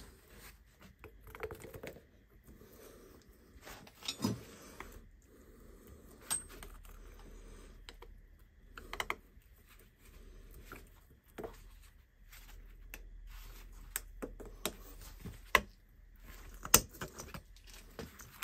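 Irregular light clicks and taps of small metal parts being handled with gloved hands, with a few sharper knocks near the end.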